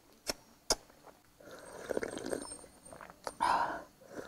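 People eating: two sharp clicks near the start, then slurping and chewing, with a louder slurp about three and a half seconds in.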